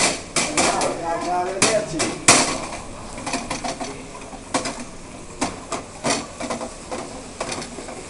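Sharp metallic knocks of a stainless steel frying pan being worked over the grate of a tableside gas burner during a flambé, about one knock a second, the loudest about two seconds in.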